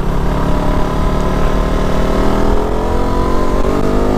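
Motorcycle engine pulling under acceleration, its pitch rising steadily, then dropping suddenly near the end as at an upshift.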